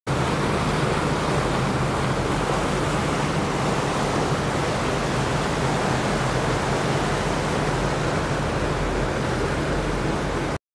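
River tour boat under way: a steady low engine hum beneath a constant rushing noise of wind and water. The sound cuts out abruptly at the very end.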